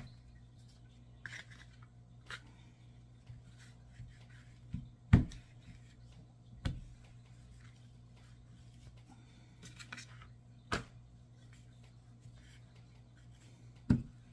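Rolling pin and hands working naan dough on a floured silicone mat over a wooden counter: soft rubbing and rolling, broken by several sharp knocks as the pin is set down or bumps the board, the loudest about five seconds in. A steady low hum runs underneath.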